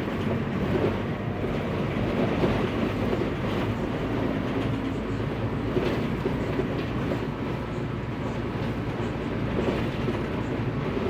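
Mercedes-Benz OF 1519 bus's diesel engine running as the bus moves along, a steady low rumble mixed with road and body noise.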